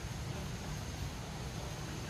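Steady low rumble of wind on the microphone over an even outdoor hiss.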